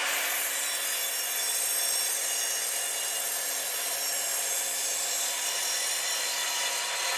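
Evolution R255SMS sliding mitre saw running steadily as its 255mm TCT multi-material blade is lowered through a thick block of old, weathered timber, with a steady motor hum under the noise of the cut.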